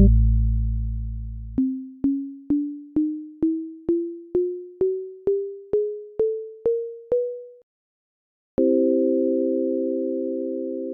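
Synthesized electronic tones. A low held tone fades out, then about thirteen short plucked notes, roughly two a second, step steadily upward in pitch. After a brief silence a steady chord of several pure tones sounds and slowly fades.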